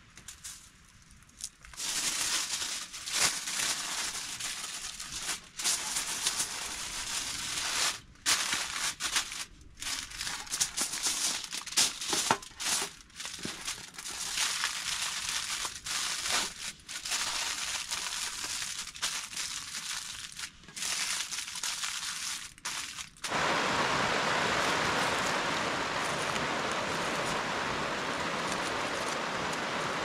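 Irregular crinkling and rustling, as of material being handled, broken by several sudden short gaps. About 23 seconds in it gives way abruptly to a steady hiss of heavy rain.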